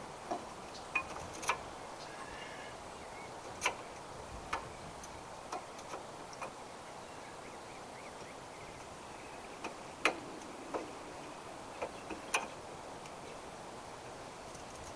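Scattered light metal clicks and clinks, about a dozen at irregular intervals, with a sharper knock about ten seconds in: brake pads, caliper and tools being handled while fitting new front brake pads.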